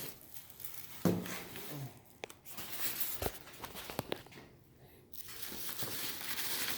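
Packaging being handled while parts are lifted out of a box: plastic and cardboard crinkling and rustling, with a few sharp clicks and a short voice sound about a second in.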